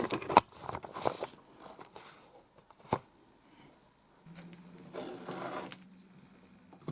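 A packet of cleaning wipes is handled and a wipe is pulled out, with rustling and scraping, a few clicks, and a sharp click about three seconds in. A faint low steady hum sets in a little past the middle, under another short rustle.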